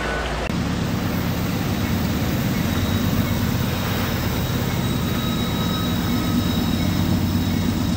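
Diesel locomotive of an approaching BNSF freight train running with a steady low rumble that grows slightly louder as it nears.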